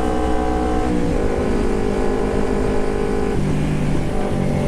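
Carburetted Kawasaki Ninja 250's parallel-twin engine running loud through an aftermarket Termignoni megaphone exhaust while riding. Its pitch holds steady and drops in two steps, about a second in and again just past three seconds.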